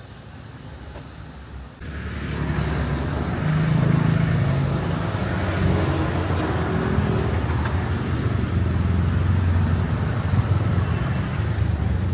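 Street traffic: motor vehicle engines, cars and motorcycles, running as a steady low rumble whose pitch drifts. It starts abruptly about two seconds in, after a quieter opening.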